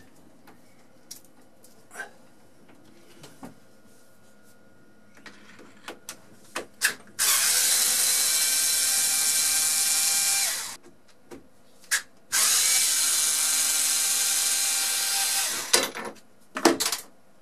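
Small cordless screwdriver running in reverse, backing screws out of a metal plate: two runs of about three seconds each, a steady motor-and-gearbox whine. Clicks and taps of handling come before and between them.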